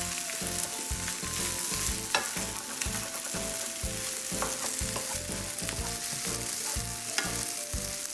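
Soaked rice noodles and egg sizzling in a hot oiled pan as they are stir-fried, with a utensil knocking against the pan twice.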